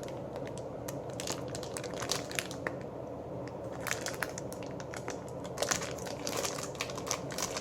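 Plastic packaging crinkling and crackling as it is handled, in a run of irregular small crackles and clicks.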